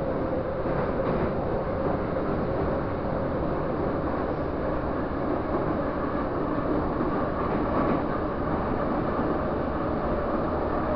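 Metro train running through a tunnel, heard from inside the car: a steady rumble of wheels and running noise with faint held motor tones.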